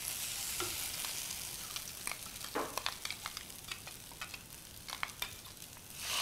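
Masala paste and onions frying in oil in a non-stick pan, a steady sizzle, with a wooden spatula knocking and scraping against the pan as it is stirred. Right at the end the sizzle swells as a little water is poured into the hot pan.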